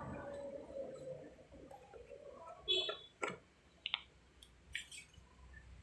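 A few scattered light clicks and knocks, with a brief ringing on some of them, as cookware and utensils are handled.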